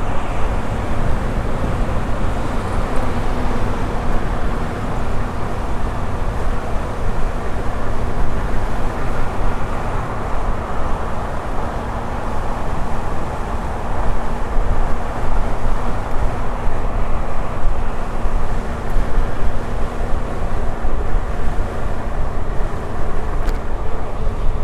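Steady wind rush on the microphone and tyre rumble while riding a Blitz electric unicycle, with a faint steady hum underneath.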